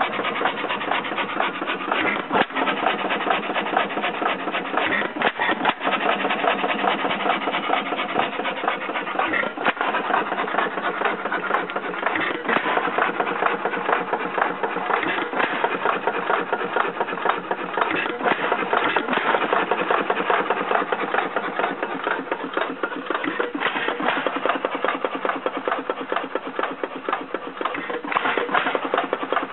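1921 Witte headless 4 hp hit-and-miss engine running, its valve gear and moving parts making a fast, steady clatter. A sharper knock comes every two to three seconds as the engine fires and then coasts on its flywheels.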